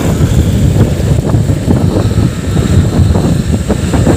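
Wind buffeting the microphone of a moving two-wheeler: a loud, gusty low rumble.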